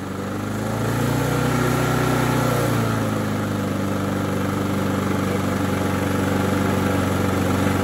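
Small four-stroke petrol lawn mower engine running. Its speed shifts over the first three seconds, then holds steady. It runs without governor control because the governor spring is broken.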